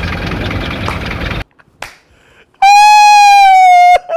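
The minibus engine idles, then cuts off abruptly about a second and a half in. After a short quiet gap comes a single long, very loud horn blast: one steady tone held for about a second and a half, sagging slightly in pitch before it stops.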